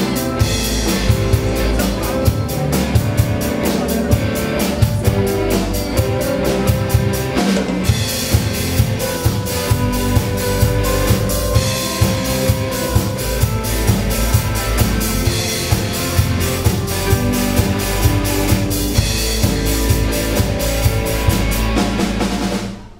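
Live band of electric guitars, bass guitar, keyboard and drum kit playing a pop-rock song, with a steady drum-kit beat driving it. The music cuts off just before the end.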